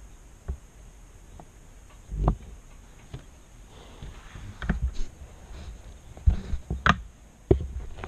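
Close handling sounds: scattered knocks, taps and rustling, with a cluster of sharper knocks and thumps in the last couple of seconds.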